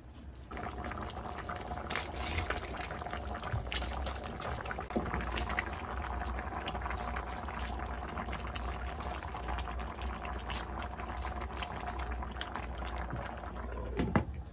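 A pot of fish soup boiling steadily, with a dense bubbling crackle that starts about half a second in. A couple of sharp clicks come near the end.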